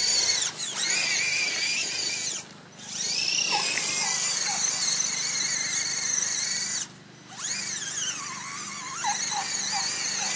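Axial SCX10 Honcho RC truck's electric motor and geared drivetrain whining under throttle, its pitch rising and falling as the trigger is worked. It cuts out twice, briefly, about a third of the way in and again about two-thirds in.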